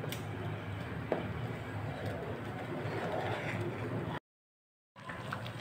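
Thick tomato sauce cooking in a pan on a high gas flame while a wooden spoon stirs it: a steady low hiss and bubbling. The sound cuts out completely for under a second near the end.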